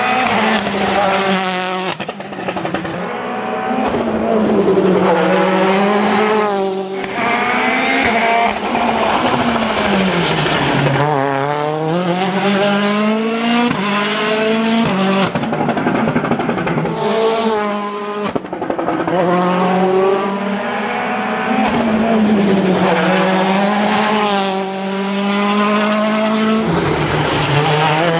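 Citroën DS3 WRC's turbocharged four-cylinder rally engine, driven hard: the revs climb again and again and drop sharply at each gear change, with a few deeper drops as the car slows for corners.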